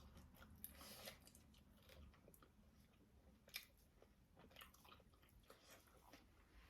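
Faint close-up chewing of fried pork, with soft irregular crunching clicks.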